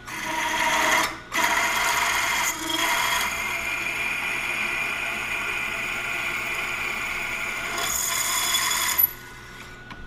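Milling machine spindle driving a 5/16-inch drill bit through the hub of a cast iron handwheel, drilling the tap hole: a steady ringing, rasping cut with a brief break about a second in, stopping about nine seconds in.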